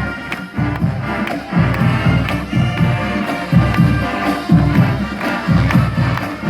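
College marching band playing: brass over a steady beat of drums and cymbals.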